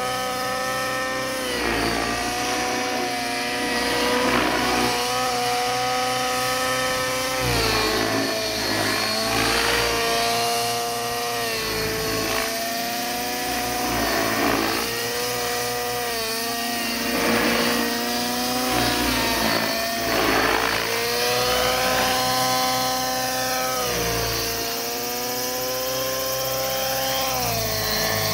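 Nitro-engine radio-control helicopter in 3D aerobatic flight: a high engine whine that keeps dipping and rising in pitch as it manoeuvres, with whooshing rotor-blade surges as it flips.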